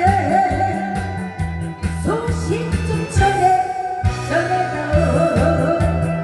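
A woman singing into a microphone in a thick, full voice over amplified backing music with a steady bass beat, heard through the PA.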